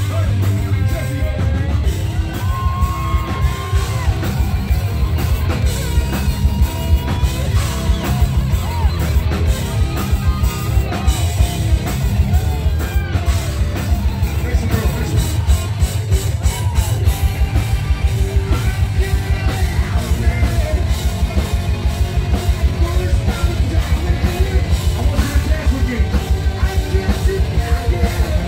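Live hard rock band playing loud: distorted electric guitars and a drum kit under a singer yelling and singing into a microphone. From about halfway the drums settle into a fast, steady beat.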